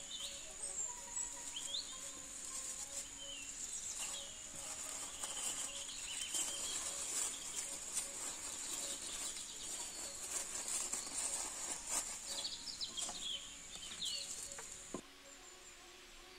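Outdoor ambience of a steady high-pitched insect drone with birds chirping, over the light rustle and crinkle of paper being folded by hand. Near the end the insect drone cuts off suddenly, leaving a quieter, lower night ambience.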